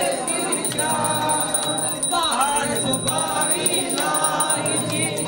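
Devotional aarti singing with temple bells ringing steadily throughout.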